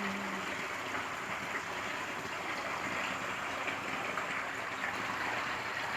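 A man's held sung note trailing off in the first half-second, then a steady, even hiss of background noise with no pitch or rhythm.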